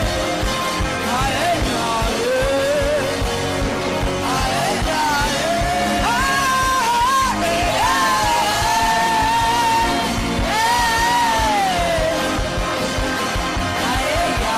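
Soaking worship music: a voice chanting long, sliding, held lines without clear words over a steady musical backing with a low, regular beat.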